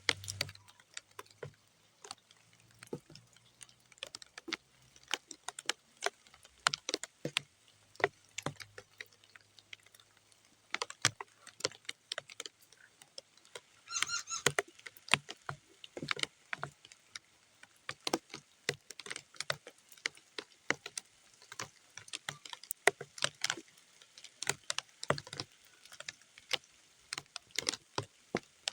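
Scattered raindrops hitting muddy ground, heard as irregular separate taps and drips with short gaps between them, and a brief denser flurry about halfway through.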